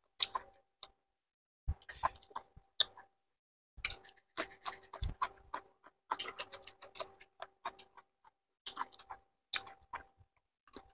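Close mouth sounds of people eating fried chicken feet with their fingers: irregular wet clicks, smacks and chewing, several a second in clusters. A faint steady hum runs under them.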